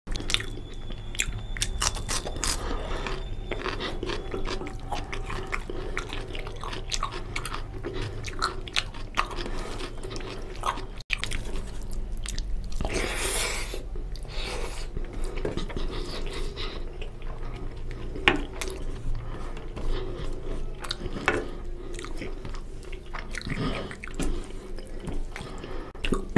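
Close-miked wet chewing and mouth smacking of a person eating rice and mutton curry by hand, a run of many small clicks, with a brief loud hiss about halfway through.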